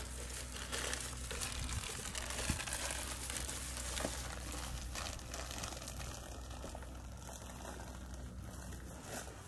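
Plastic bag rustling and crinkling continuously as it is carried, with a low steady hum underneath that fades near the end.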